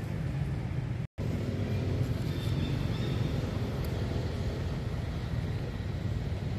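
Steady low rumble, with a brief gap of complete silence about a second in.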